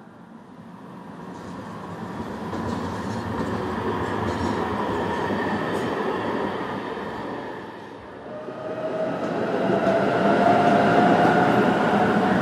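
Trams rolling past on street track, one after another. The noise swells and fades over the first two-thirds, then a second tram comes in louder near the end with a slowly rising whine.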